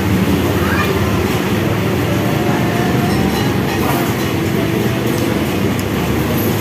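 Busy street ambience: a steady rumble of passing traffic with background voices.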